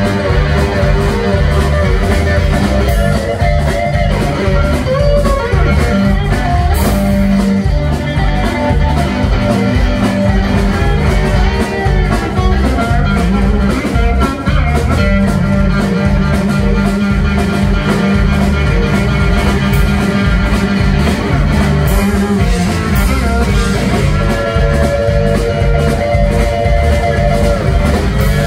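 Live blues-rock band playing loudly and steadily: an electric guitar with a rectangular box body played over a drum kit, with no singing.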